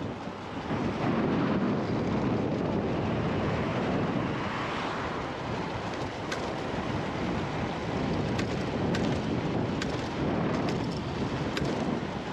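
Wind rushing over the microphone of a moving 72-volt electric bike: a steady rumbling rush with no engine note. Several short clicks come through in the second half.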